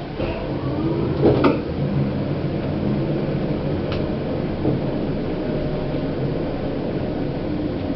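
Old Platt Schindler lift running: a steady mechanical hum and rumble, with a knock about a second and a half in and a faint click a few seconds later.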